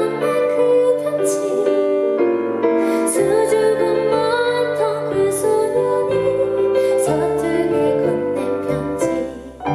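Live ballad performance: a woman singing a soft melody over piano accompaniment.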